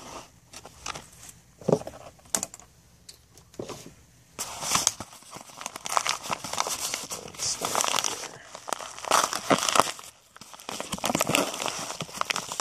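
Yellow kraft padded mailers and green paper packing tape handled and torn open by hand. A few scattered rustles and snaps come first, then from about four seconds in a run of steady crinkling and tearing of paper, with a short pause near ten seconds.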